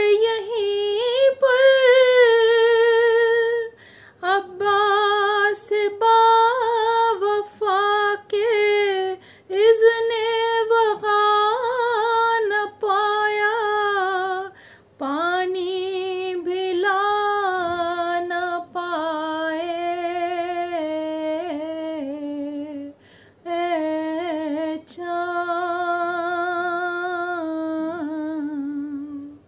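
A woman singing an Urdu salaam unaccompanied, in held notes with a wavering vibrato, phrase after phrase with short pauses for breath between them; the melody settles lower about halfway through.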